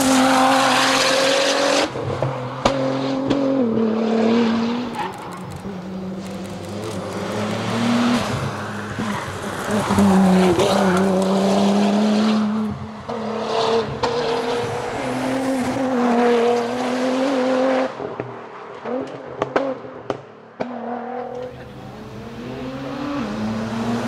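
Nissan R35 GT-R's twin-turbo 3.8-litre V6 driven hard, its engine note climbing and dropping back again and again with gear changes and lifts. It goes quieter for a few seconds late on.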